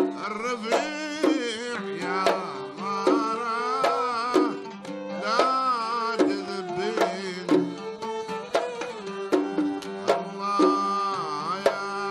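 Traditional Omani ensemble music without singing: a violin plays a wavering, ornamented melody over oud notes, with regular hand-drum strokes keeping the beat.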